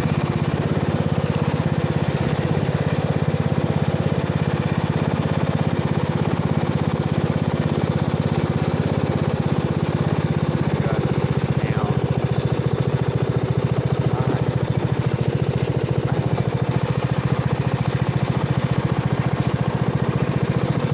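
Riding lawn mower's engine running steadily at constant speed.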